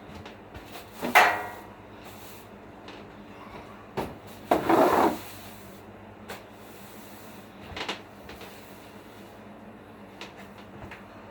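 A few sharp knocks and clatters of household objects being handled, the loudest about a second in, with a short scraping rattle about four and a half seconds in.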